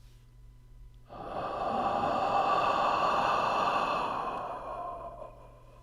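A long breathy hiss that starts suddenly about a second in, holds for a few seconds and fades away near the end.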